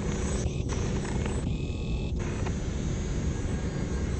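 Distant GWS Slow Stick electric model planes droning overhead under a steady low rumble.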